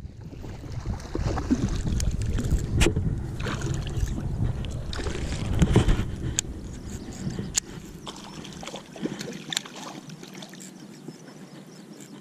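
Baitcasting reel cranked in while fighting a hooked bass that splashes at the surface, with scattered sharp clicks. A low wind rumble on the microphone eases off about two-thirds of the way through.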